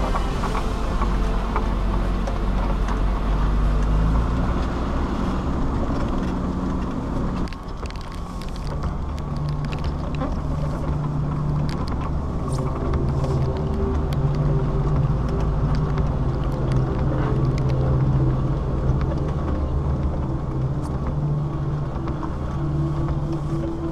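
Land Rover Defender's engine running as the vehicle crawls downhill on a wet, rocky gravel track. The sound dips briefly about seven seconds in, then settles into a steadier drone with scattered faint clicks.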